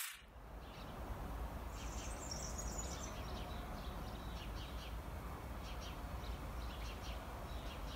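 Outdoor ambience: a steady low rumble with small birds chirping faintly, including a brief run of high twittering about two seconds in.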